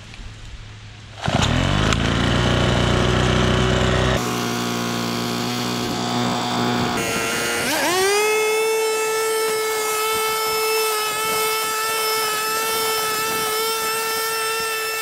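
Troy-Bilt 27cc two-stroke blower/vacuum engine catching about a second in and running at a lower speed. About halfway it revs up to full throttle and holds a steady high whine.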